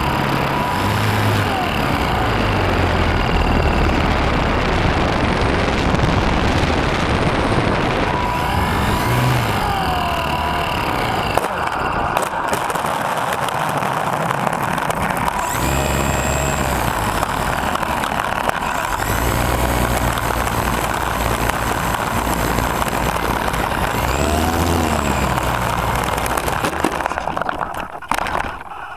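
Electric motor and propeller of a HobbyZone Super Cub RC plane in flight, heard from the plane's own onboard camera, buried under heavy wind rush with a faint steady whine. Near the end come a few knocks, and the noise drops away as the plane comes down.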